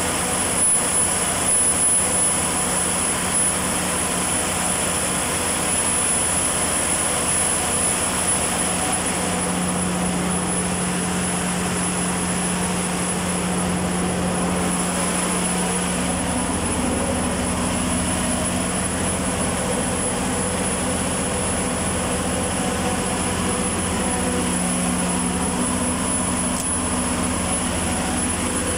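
Perkins 2200 series diesel generator engine running steadily at governed speed while carrying about 194 kW on a load bank, with a steady drone.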